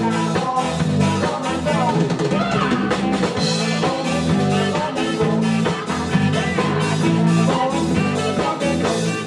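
A live rock and soul band playing a song at full volume: a drum kit, bass and guitar keeping a steady beat under a male and a female singer on handheld microphones.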